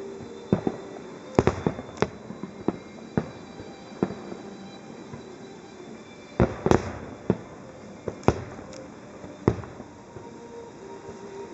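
Aerial firework shells bursting in an irregular series of sharp bangs, some coming in quick clusters.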